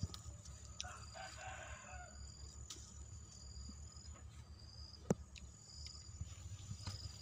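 A rooster crows once, about a second in, over a faint high chirp that repeats about once a second. A single sharp snap comes about five seconds in.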